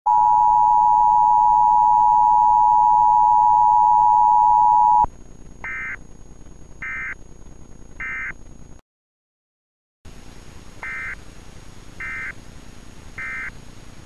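Emergency Alert System attention signal: a loud, steady two-tone pitch that cuts off sharply about five seconds in. It is followed by three short, even bursts of higher digital data tones, a second of silence, then three more bursts, over a faint hiss.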